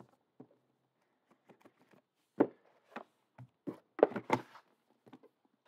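Cardboard trading-card box being handled: a scatter of light knocks and taps, with the loudest cluster about four seconds in.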